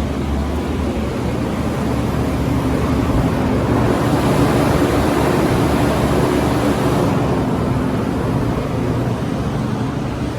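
American Standard commercial air conditioner running just after start-up: a steady rush of fan air over a low compressor hum, swelling a little from about four to seven seconds in.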